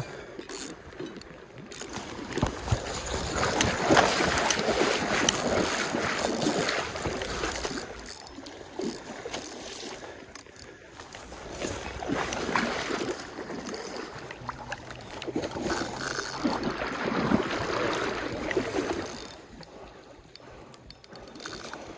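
Stream water splashing and sloshing, swelling in two louder surges, with scattered small knocks.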